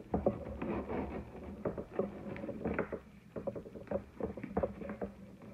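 Wire-edged fabric ribbon rustling and crinkling in short, irregular scratches as hands pull and shape the loops of a bow.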